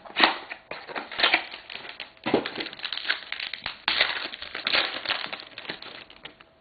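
A trading-card pack wrapper being torn open and crinkled by hand: a run of irregular rustling crackles that fades off near the end.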